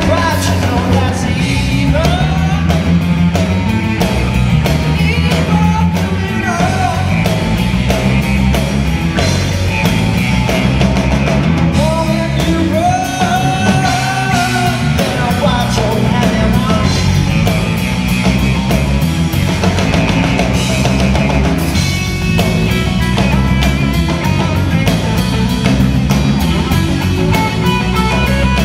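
Live rock band playing: electric guitar, electric bass and a Premier drum kit, with singing.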